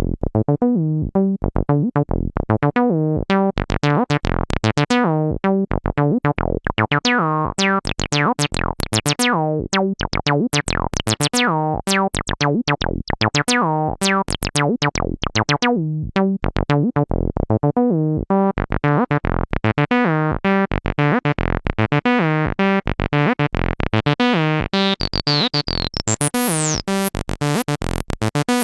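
Behringer TD-3 analog bass synthesizer playing a sequenced acid bassline of rapid, repeating notes through its resonant filter. In the second half the filter opens and the notes turn brighter and more squelchy.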